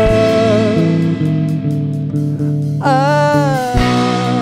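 Live rock band playing: electric guitars, bass guitar and drums, with a held sung note fading out about a second in and a new note that slides, then holds, about three seconds in.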